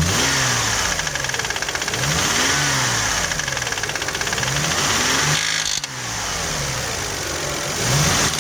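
Toyota 1MZ-FE V6 engine revved in several short blips, the pitch rising and falling each time, with a knock that appeared on the first start after a spark plug change.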